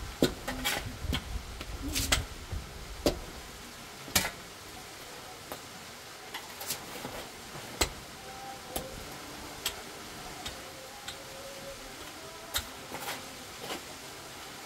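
Shovels digging into dry, stony ground: irregular sharp clinks of metal blades striking dirt and rock. There are dull thuds among them in the first few seconds, and after that only sparse single clinks.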